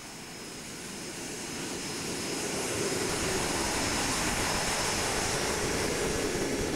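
Jet engines of a C-17 Globemaster III under power as it turns on the runway: a rushing jet noise with a faint high whine, growing louder over the first few seconds and then holding steady.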